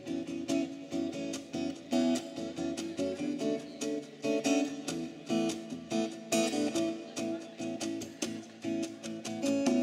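Acoustic guitars strummed in a steady rhythm, with a hand drum played along.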